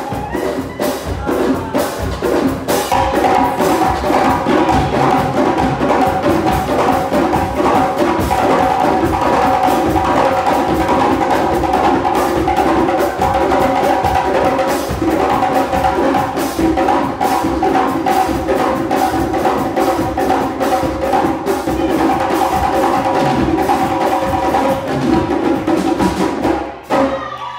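Djembe hand drums and a drum kit playing together in a fast, dense, steady rhythm, which stops just before the end.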